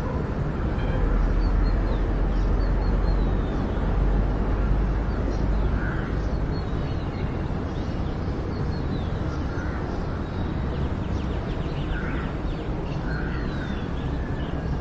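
Wind rumbling on the microphone, strongest in the first few seconds, with faint scattered bird calls above it.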